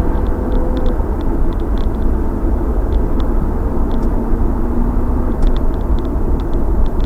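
2000 Pontiac Trans Am Firehawk's 5.7-litre LS1 V8 running at low revs, largely buried under a steady, heavy low rumble from wind on the microphone, with scattered light ticks.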